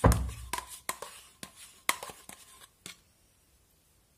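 Handling noises as plain yogurt is emptied from its cup into a metal saucepan: a dull thump at the start, then scattered clicks and taps, stopping about three seconds in.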